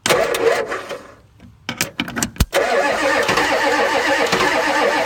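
1984 Ford F-250's 6.9 L IDI diesel being cranked by its starter: a first short burst of cranking, a pause with a few clicks, then steady cranking from about two and a half seconds in, without the engine catching. The owner suspects air in the injection system from an air leak.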